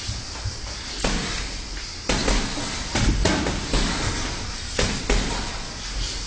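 Boxing sparring: a handful of irregular thuds and slaps of gloved punches landing, with feet shuffling on the ring canvas.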